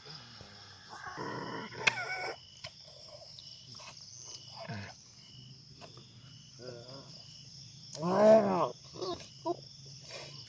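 Wordless growling from a medium in a trance during a spirit mediation: a short growl about a second in, a few faint ones, then a louder, longer growl near the end whose pitch rises and falls. The team takes it for the medium being too weak to hold back the spirit's energy.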